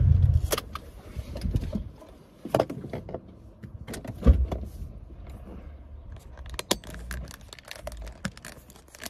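Handling noises inside a parked open-top car: a low rumble cuts off just after the start, then scattered clicks and knocks with a jingle of keys, the loudest knock about four seconds in.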